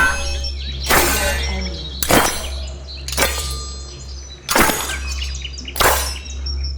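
Sword and knife blade sound effects: six sharp metallic strikes about a second apart, each leaving a short high ringing, over a steady low hum.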